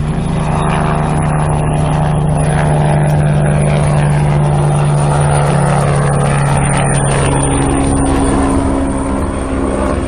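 Helicopter flying low and hovering: a steady drone of rotor and engine that swells over the first second and then holds.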